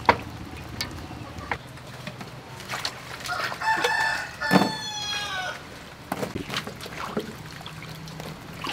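A rooster crows once midway, a call of about two seconds that droops in pitch at the end. Around it are short taps and clicks of cut breadfruit pieces being handled in a metal bowl.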